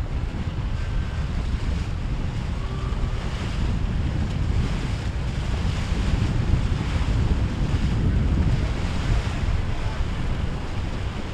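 Wind buffeting the microphone over surf at an ocean inlet, with the motors of passing boats mixed in; the rumble swells a little past the middle.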